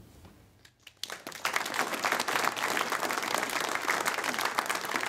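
Audience applauding, dense rapid clapping that starts suddenly about a second in after a brief hush.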